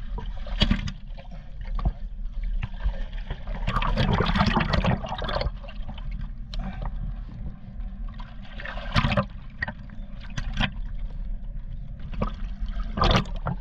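Water sloshing and splashing around a waterproof action camera held half under the surface, with a hand-held peacock bass splashing in the shallows. A steady muffled low rumble, broken by several splashes, the longest about four seconds in.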